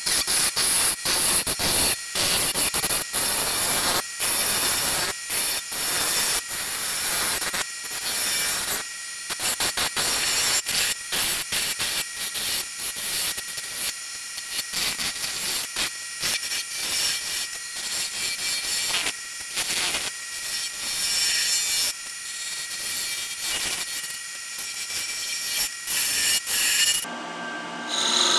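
A hand turning tool cutting a softwood blank spinning on a wood lathe: a hissing scrape of shavings coming off in repeated passes with short breaks between them, over a faint steady whine of the lathe. The cutting stops near the end.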